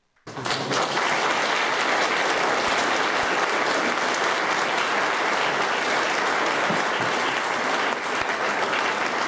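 Audience applauding steadily, starting suddenly after a moment of silence.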